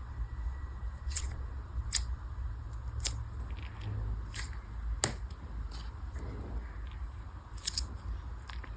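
A squishy toy being squeezed and handled close to the microphone: scattered sharp clicks and crackles over a low handling rumble, with the loudest click about five seconds in.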